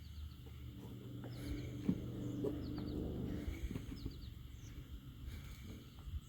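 Small birds chirping in short runs of three or four quick notes, repeated several times, over a low murmur and a few scattered clicks.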